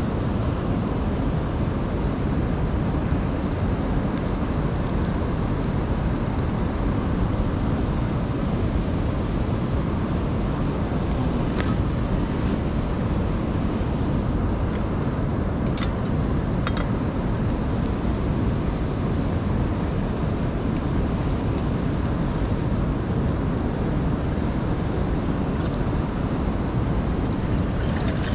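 Steady rushing roar of a nearby mountain river, with a few light clicks of cookware being handled partway through.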